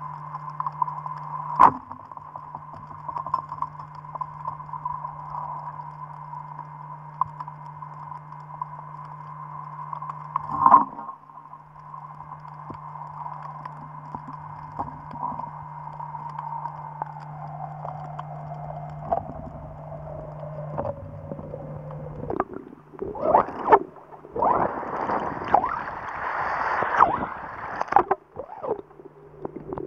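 Underwater sound from a spearfishing dive: a steady low hum under a high whine that slides slowly down in pitch past the middle. Two sharp knocks come, one early and one about a third of the way in. Near the end there is a few seconds of loud gurgling and sloshing water.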